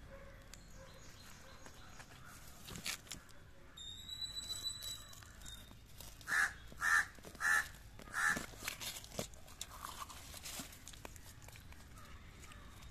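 A hand squelching and splashing in muddy, waterlogged soil. A thin, high, steady whistle lasts about two seconds, then a bird calls loudly four times in quick succession, about half a second apart.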